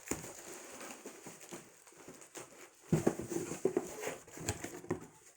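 Packaging rustling and scraping as a tightly packed humidifier is pulled out of its box, with a cluster of short knocks about three to four and a half seconds in.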